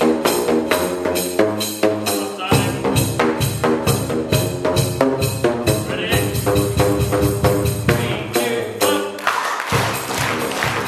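Music played on a home-made drum of plastic drain pipes of different lengths, their open ends slapped with flip-flops to give pitched notes in a quick, even beat with a bass line under it. About nine seconds in, a dense hissy wash comes in over the beat.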